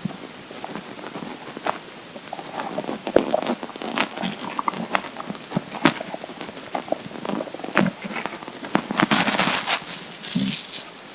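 Empty, hungry stomach gurgling: a run of small bubbly pops, clicks and squelches, with a brief rushing hiss about nine seconds in and a short low gurgle just after.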